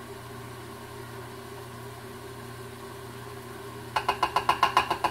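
Steady background hiss and hum, then about four seconds in a quick run of about ten rapid, ringing taps, roughly eight a second: a measuring cup knocked against the food processor's bowl to shake out the last of the olive oil.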